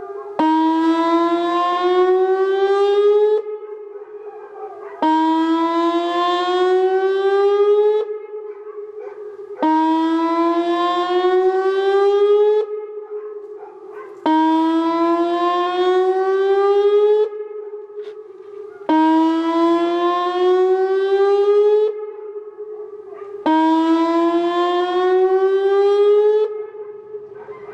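Whelen 2810 electronic outdoor warning siren sounding its whoop tone during a weekly test: six rising sweeps, each about three seconds long, coming about every four and a half seconds, with the tone lingering faintly between them.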